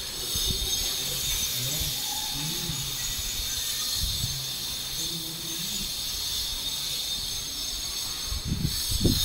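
Steady hiss, with faint low pitched fragments in the background and a few dull bumps near the end.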